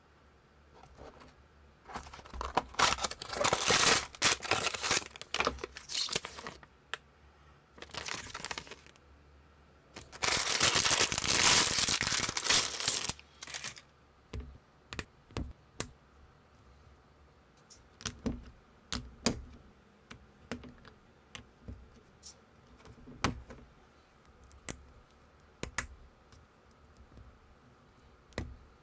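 Packaging of a small building-brick set being torn open and crinkled in two loud spells. Then a scatter of sharp clicks as small plastic bricks are picked up and snapped together.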